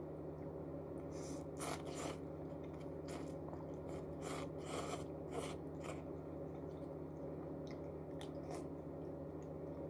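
A person chewing and eating noodles: a run of short mouth sounds through the first six seconds, sparser afterwards, over a steady low hum.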